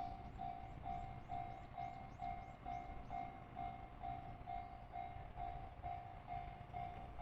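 Japanese level-crossing warning bell ringing, an even high ding repeating about twice a second, signalling that a train is approaching.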